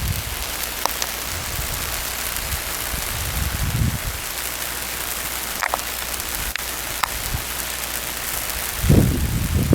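Steady crackling hiss of high-voltage transmission lines wet with rain: corona discharge caused by water on the conductors. A few low rumbles come through about three and a half seconds in and again near the end.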